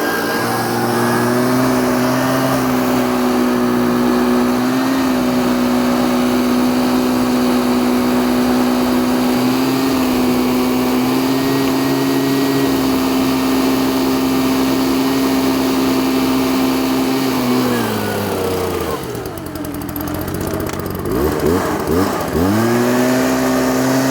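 Leaf blower running steadily at high speed, blowing into a conduit to push a plastic bag and pull line through. About 18 seconds in its pitch drops as it slows down, and near the end it revs back up to full speed.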